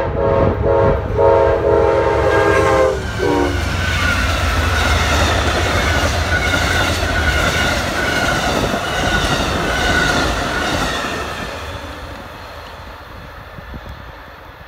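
Amtrak passenger train's locomotive horn sounding a chord for about three and a half seconds, dipping in pitch as the locomotive passes. Then the train rushes by with wheels rumbling and clacking on the rails and a high whine slowly falling, fading as the cars move away.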